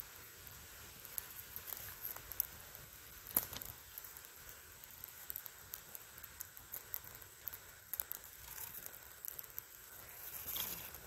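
Small campfire of dry sticks stacked teepee-style, lit with birch bark, crackling with irregular snaps and pops; the sharpest pop comes about three and a half seconds in.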